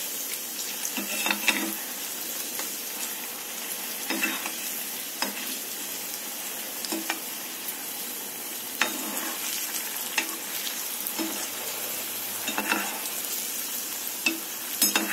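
Vegetable Manchurian balls deep-frying in hot oil in a wok, sizzling steadily, with a perforated metal skimmer scraping and knocking against the pan now and then as it turns them.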